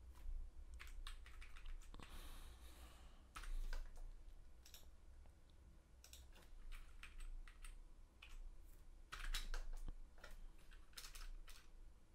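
Faint typing on a computer keyboard: keystrokes in irregular clusters, over a steady low hum.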